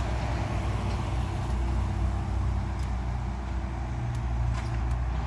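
Steady low rumble of road traffic, with a few faint short high ticks near the middle.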